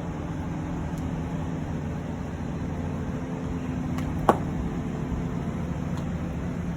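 Vehicle engine idling steadily with a low hum, with one brief sharp squeak about four seconds in.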